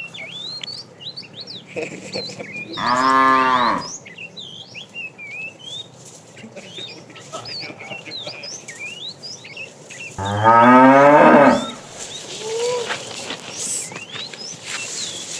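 Cattle mooing twice, each call about a second long. The second call, about ten seconds in, is louder and lower. Short high chirps run underneath throughout.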